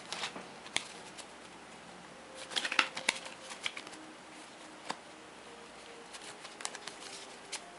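Board-game cards being handled: a short flurry of card flicks and snaps about two and a half seconds in, with scattered clicks of cards tapped and laid down before and after.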